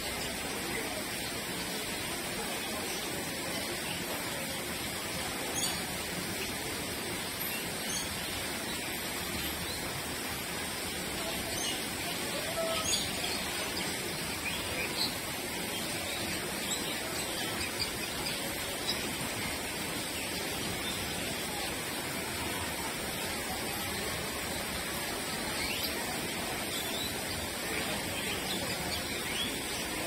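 Bird-park ambience: a steady rush of running water with scattered short bird chirps and calls over it, a few a little louder about halfway through.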